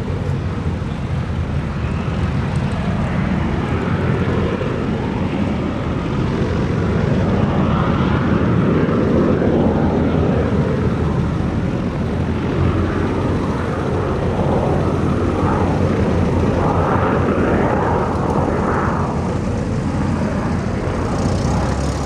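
Aero L-29 Delfin's turbojet engine running: a continuous rumble that grows louder a few seconds in and stays up.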